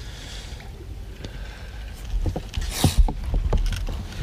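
A splash and a run of knocks and bumps against the boat as a hooked bass is pulled out of the water and landed. The loudest moment comes about three seconds in.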